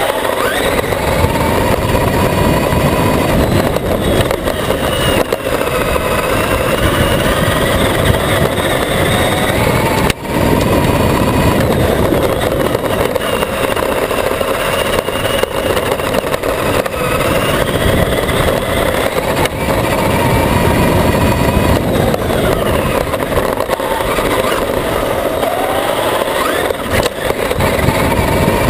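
Traxxas E-Maxx electric RC monster truck heard from on board while driving hard over grass and gravel: the motor whine rises and falls with speed over a loud rumble of the chassis and tyres on rough ground. A sharp knock about ten seconds in.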